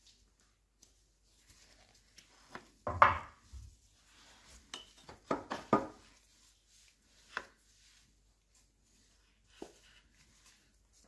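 Scattered metal knocks and clinks of a spanner and a thin steel rod against a milling machine's bevel gear, shaft and cast-iron housing as the gear is worked along the shaft. The loudest knock comes about three seconds in, with a quick cluster a couple of seconds later.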